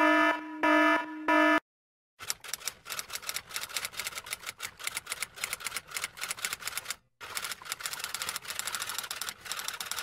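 Rapid typewriter typing sound effect, a dense clatter of keystrokes that starts about two seconds in and pauses briefly near the seven-second mark. Before it, a few short electronic beeps sound in the first second and a half.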